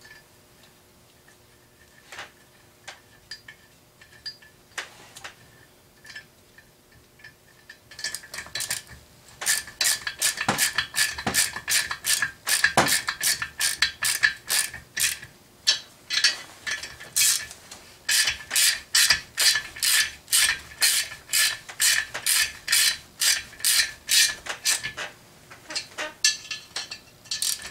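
Socket ratchet clicking in two quick runs, with a short pause between, as the exhaust flange bolts are run down onto a Yamaha Blaster cylinder. A few scattered clinks of parts and tools come before the ratcheting starts, about a third of the way in.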